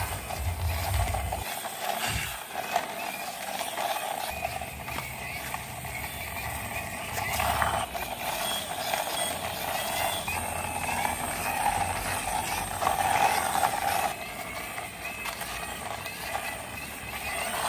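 Plastic toy motorbike pushed by hand along a concrete wall, its wheels rolling and its mechanism giving a steady whirr that swells and fades. The whirr drops off about fourteen seconds in.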